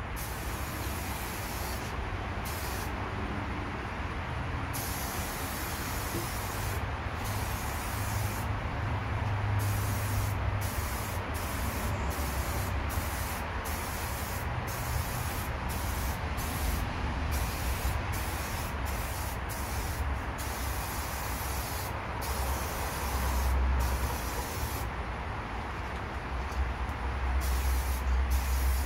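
SprayMax 2K Clear Glamour aerosol can spraying clear coat in a steady hiss, broken by many brief let-offs of the nozzle, with a low rumble underneath.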